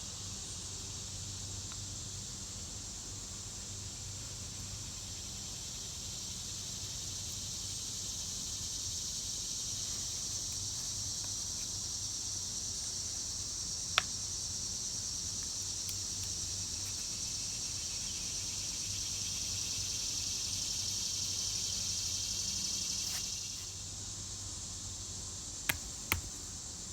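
A steady, high-pitched insect chorus that swells louder through the middle and eases off a few seconds before the end. A single sharp click comes about halfway, and two short knocks follow near the end.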